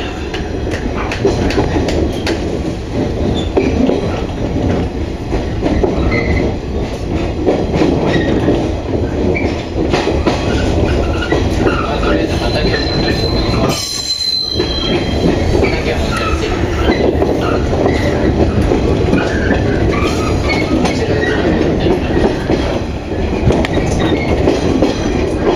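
JR 115-series (1000 subseries) electric train running through switchback points and curves, heard from inside the front car: a dense rumble and clatter of wheels on rail. A brief high wheel squeal comes about halfway through.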